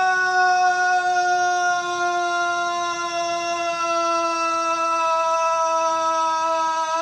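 A man's voice holding one long, unbroken scream of the final 'Haaa' of a Kamehameha, amplified through a microphone. It is the drawn-out Goku-style battle cry, sustained with a breathing technique meant to keep the shout continuous. The pitch stays steady, sagging only slightly.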